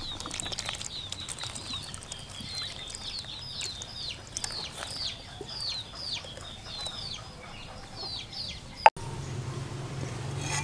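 Chicks cheeping in short, high, falling peeps, about two to three a second. About nine seconds in the peeps stop with a single sharp click, and a steady low hum follows.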